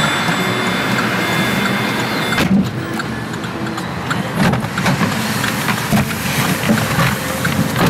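A car's cabin sounds: a steady noise that changes abruptly about two and a half seconds in, then a low rumble with a run of knocks and clicks as someone climbs into the driver's seat.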